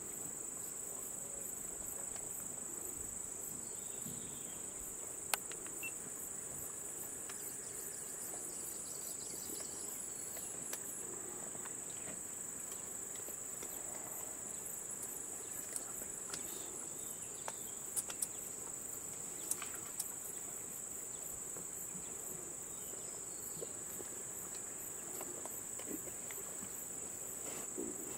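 Steady high-pitched insect chorus, one unbroken drone, with a few faint clicks here and there.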